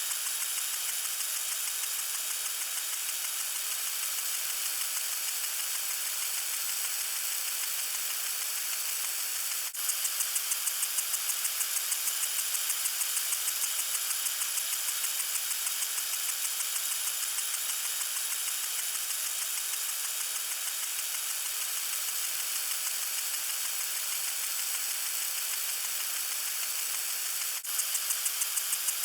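Lawn sprinkler spraying water: a steady hiss with a fast, even pulsing, about three pulses a second. It breaks off for an instant about ten seconds in and again near the end, and the pulsing comes back stronger each time.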